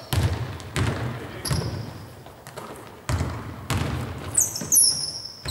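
Basketballs bouncing on a hardwood gym floor: several separate bounces that echo in the hall, with sneakers squeaking sharply on the court near the end.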